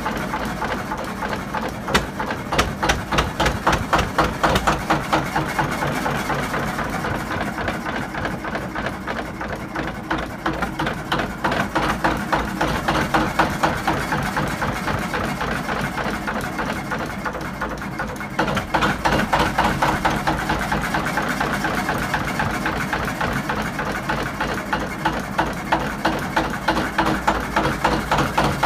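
1942 Kelvin K2 two-cylinder, 8¼-litre diesel engine running with a slow, even beat from its firing strokes. It eases off a little in the middle and grows louder again about two-thirds of the way through.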